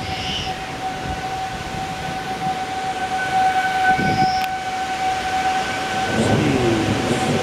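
Outdoor warning siren holding one steady tone, heard over steady rushing noise.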